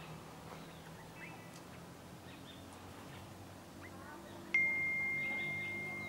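Faint scattered bird chirps over a low steady hum. About four and a half seconds in, a single chime note is struck and rings on, slowly fading.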